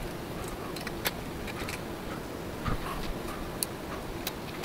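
Scattered light clicks and ticks of small parts being handled and screwed together: M5 screws being fastened to fix a switch bracket onto the frame. A steady background hum runs underneath.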